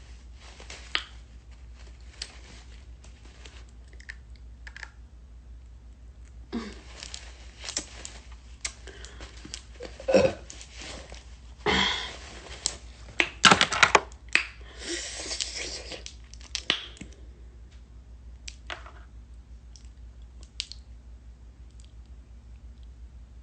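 A person eating a ripe, juicy mango close to the microphone: wet chewing, sucking and slurping with scattered smacks and clicks, busiest in the middle and sparse near the end.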